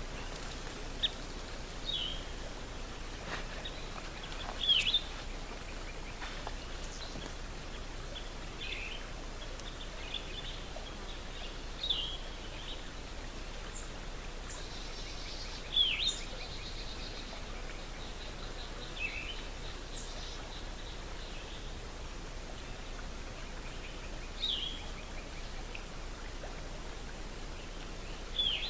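Wild birds calling outdoors: short high chirps and quick down-slurred calls every few seconds over a steady background hiss, the clearest about five seconds in, in the middle, and near the end.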